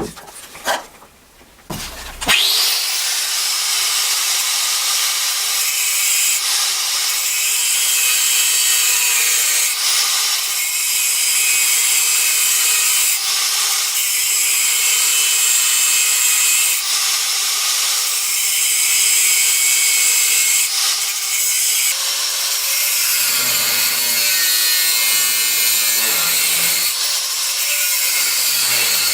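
A few knocks, then an electric power tool starts up about two seconds in with a brief rising whine and runs steadily against the workpiece, making a loud high hiss.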